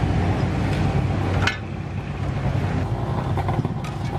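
Low street-traffic rumble under the scrape and clink of a metal spatula in a large pan of frying pad thai noodles. A sharp clink comes about a third of the way in, after which the hiss drops away, and a few lighter clinks follow near the end.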